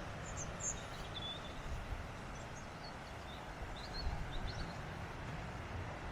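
Steady outdoor rumble and hiss with a few short, high bird chirps scattered through it, a cluster coming about four seconds in.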